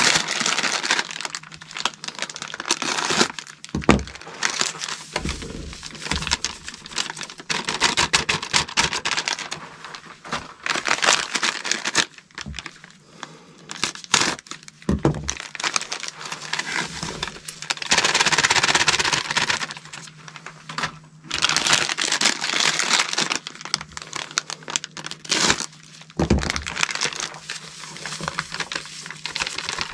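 Small bags of dry refractory mortar mix crinkling and rustling as they are opened and emptied onto a scale, in irregular stretches, the longest about two-thirds of the way through, with a few sharp knocks.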